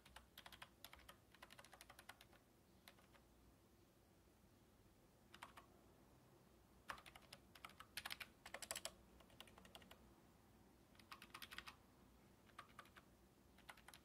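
Bytech retro keyboard with round typewriter-style keycaps being typed on: faint key clicks in several short runs with pauses between.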